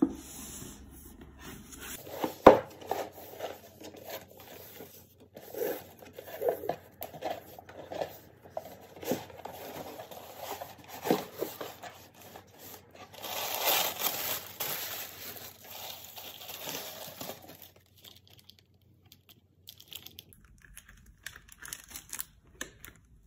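Paper gift packaging being handled and opened: cardboard and ribbon rustling, with one sharp knock about two seconds in. About halfway through comes a longer rustle and crinkle of tissue paper being folded back, then quieter rustling of shredded paper filler.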